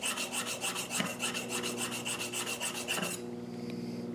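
High-carbon steel pruning-shear blade rubbed rapidly back and forth on a whetstone, about five strokes a second, to take off a burr on the other side of the blade. The strokes stop about three seconds in, leaving a low steady hum.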